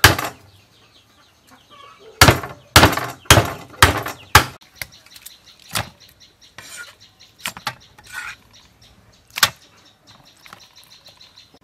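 Meat cleaver chopping through a fish on a wooden chopping board: one chop at the start, then five heavy chops in quick succession, followed by a few lighter, scattered knocks.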